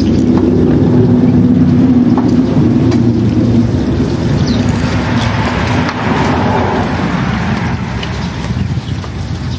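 An engine running with a steady low hum, strongest at first and gradually fading away.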